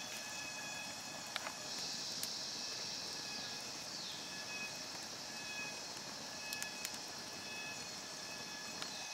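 Forest insects droning in several steady high tones, with a louder buzz for about two seconds that trails off falling in pitch. A few sharp crackles from a small wood fire.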